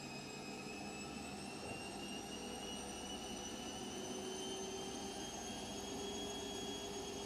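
Washing machine motor whining as the drum spins up, the pitch rising slowly and steadily over a low rumble.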